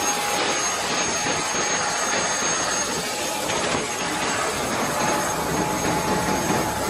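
Helicopter engine and rotor running on the ground, heard inside the cabin: a steady rush of noise with a thin high whine.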